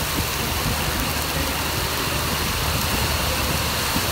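Heavy downpour: rain pouring down and splashing on flooded concrete, a steady dense hiss with a deep rumble beneath it.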